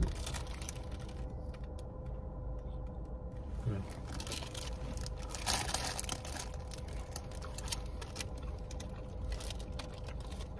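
Clear plastic pastry bags crinkling and people chewing, over a steady low hum inside a car cabin.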